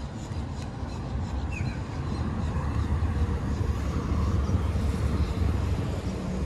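Steady low rumble of a car driving, engine and tyre road noise heard from inside, growing somewhat louder a couple of seconds in.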